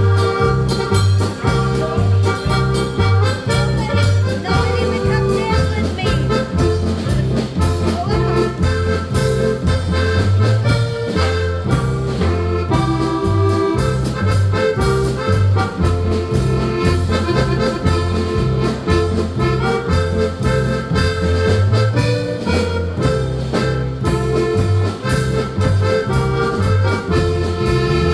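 Live polka band playing, with an accordion carrying the melody over a steady oom-pah bass line that alternates between notes on the beat.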